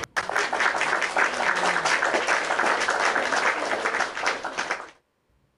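Crowd applauding, a dense patter of many hands clapping that starts abruptly and cuts off abruptly after about five seconds, like an applause sound effect.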